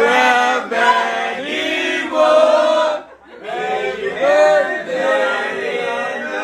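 A group of voices singing together in unison without instruments, with a short break about three seconds in.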